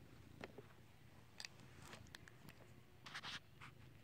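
Near silence: room tone with a few faint ticks and a brief scratchy rustle about three seconds in. No bell rings.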